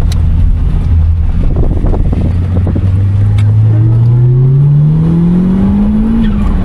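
Nissan March Super Turbo's supercharged and turbocharged 930 cc four-cylinder engine holding a steady low note, then accelerating with a steadily rising pitch from about halfway in. The pitch drops sharply near the end.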